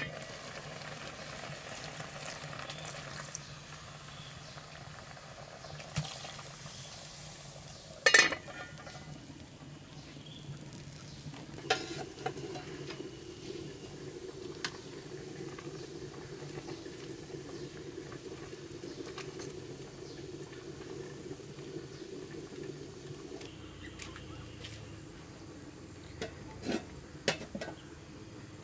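Cooking at a wood-fired stove: a spoon stirring and scraping in a metal pot, with pot lids clattering now and then. The loudest sound is a single ringing metal clank about eight seconds in.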